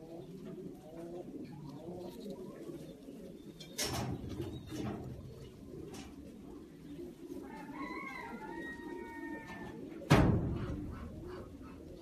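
Fantail pigeon cooing on and on in a low, rolling warble. Two sudden thumps break in, a smaller one about four seconds in and a much louder one about ten seconds in, with a brief higher-pitched call just before the second.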